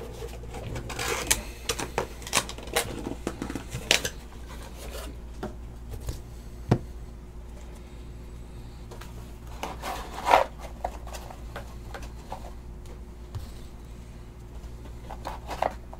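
Trading cards being handled and put away by hand: scattered light clicks and rustles, with a sharper knock about seven seconds in and a cluster of louder clicks around ten seconds.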